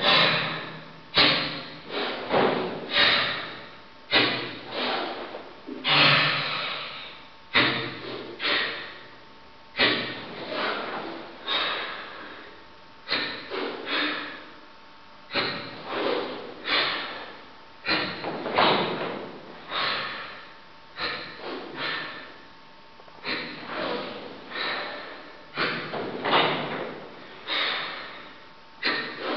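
Forceful ibuki breathing of the Sanchin kata: loud, hissing breaths forced out and drawn in under tension, each starting sharply and fading away, about one every second.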